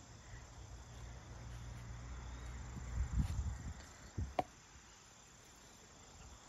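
Faint steady insect chirring, likely crickets, under a low rumble that swells about three seconds in. Two sharp clicks follow a little after four seconds.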